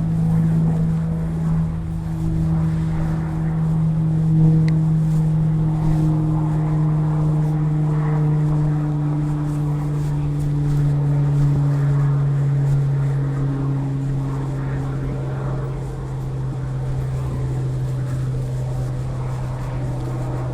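A low, steady engine drone, a single hum with overtones that slowly falls in pitch.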